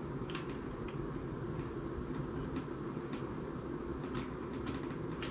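Faint, scattered small clicks of screws and a small screwdriver being worked into a pistol-grip mount, over a steady low hum.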